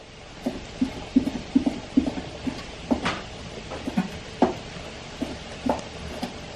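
Knife slicing Korean blood sausage (sundae) on a wooden cutting board: a string of irregular dull knocks as the blade hits the board, two or three a second, with a short pause about halfway.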